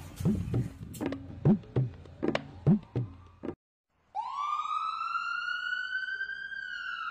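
A quick series of knocks about every half second, then after a brief gap a siren-like whistling tone that sweeps up, holds and slides down near the end.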